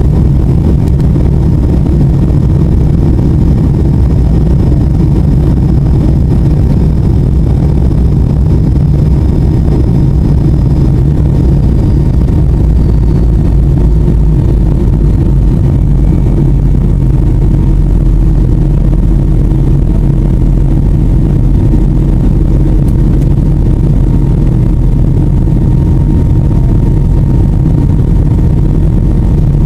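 Light aircraft's engine drone heard inside the cabin in flight, loud, low and steady without change.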